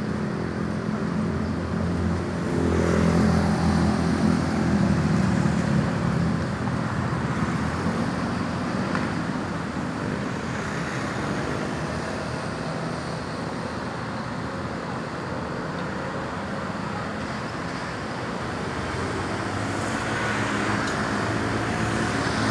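Road traffic: motor vehicle engines running and vehicles passing, swelling louder between about two and six seconds in and again near the end.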